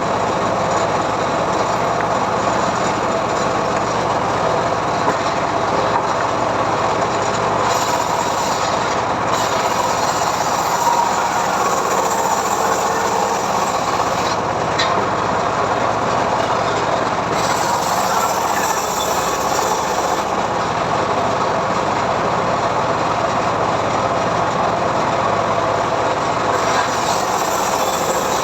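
Homemade engine-driven sawmill running steadily while ripping a mahogany log, a continuous grinding saw-and-motor noise with a higher hiss that comes and goes.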